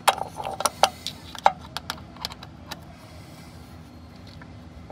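Ratcheting combination wrench clicking in short irregular runs as it is worked back and forth on a hex nut, loosening it, with a few sharper metal clinks. The clicking stops about three seconds in.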